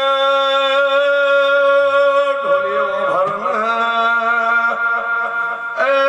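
A reed or wind instrument holds one steady, unwavering note. A voice wavers through a short gap in the middle, then the note restarts abruptly near the end.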